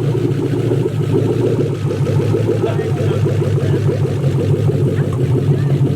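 V8 engine swapped into a Nissan 240SX, idling steadily on one of its first runs after the swap.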